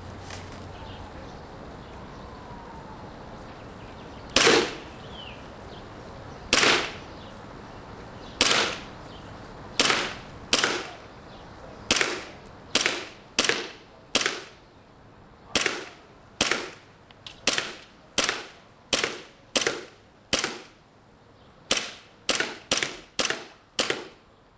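KJW Glock airsoft pistol being fired at a target, about twenty sharp shots. The first few come about two seconds apart, the rest quicker, with a fast string of five near the end.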